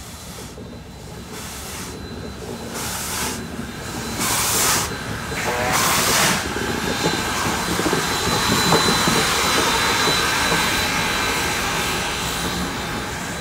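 Union Pacific Big Boy No. 4014, a 4-8-8-4 articulated steam locomotive, working past on its break-in run. Its exhaust chuffs come a little over one a second and grow louder as it approaches. They give way to a steady hiss and rumble as the engine and its train roll by, with a thin high whine over the top.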